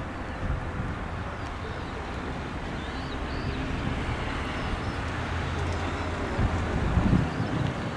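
Four Rolls-Royce Trent 500 jet engines of an Airbus A340-500 at takeoff power during the takeoff roll: a steady distant rumble that grows louder near the end. Small birds chirp faintly a few times.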